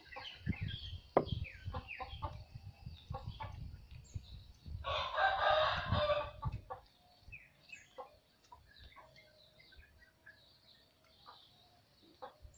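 A rooster crows once, about five seconds in, for about a second and a half. Scattered clicks and low knocks run around it, mostly in the first half.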